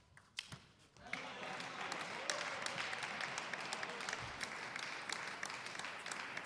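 A couple of sharp table tennis ball clicks at the end of a rally. About a second in, the hall's crowd breaks into applause that carries on.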